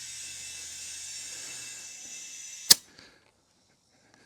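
Air hose chuck on a tire valve stem hissing steadily as air fills a freshly plugged tire. After about two and a half seconds it ends with a sharp click as the chuck comes off the valve.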